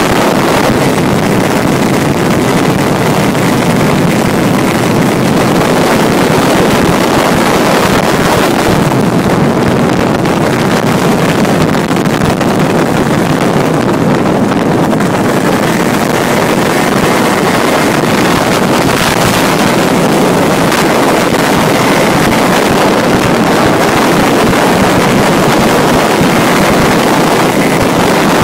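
Honda Dio ZX 50 cc two-stroke scooter engine in a road-legal go-kart running hard at speed, with wind buffeting the microphone. Loud and steady, with no let-up.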